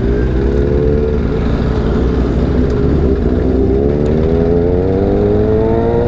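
Motorcycle engine running under way, its pitch rising steadily over the last few seconds as it accelerates, with a constant rumble of wind on the microphone.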